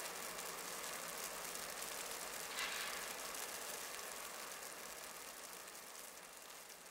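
Distant freight train approaching at night, heard as a faint, even hiss of wheels and track noise with little low rumble. A brief louder rush comes about two and a half seconds in, and the sound fades steadily toward the end.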